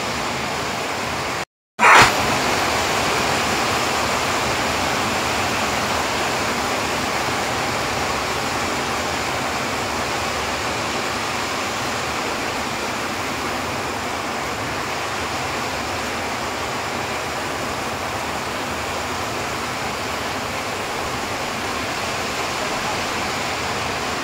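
Heavy rain pouring down steadily, a dense hiss of rain falling on the road and vegetation. About a second and a half in, the sound drops out for a moment and comes back with a short louder burst before the steady downpour resumes.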